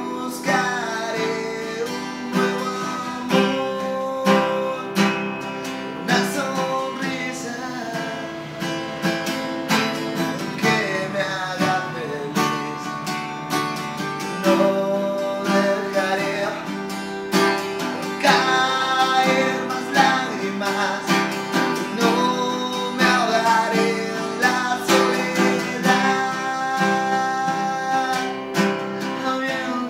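Cutaway acoustic guitar being strummed, with a man singing a melody over it.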